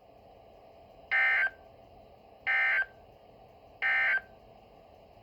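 Three short bursts of Emergency Alert System SAME digital data tones from NOAA Weather Radio, about a second and a half apart: the end-of-message code that closes the alert.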